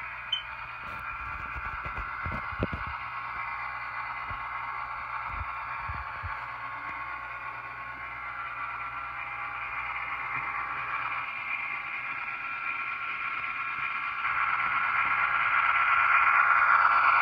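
HO scale model diesel locomotive (a Norfolk Southern F7) running on the layout: a steady whine of its motor and gears, growing louder in the last few seconds as it comes round the curve. A few light knocks in the first few seconds.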